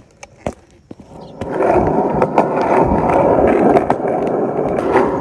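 A few light knocks, then about a second and a half in a skateboard starts rolling on rough asphalt: the wheels give a loud, steady rolling noise with occasional sharp clicks.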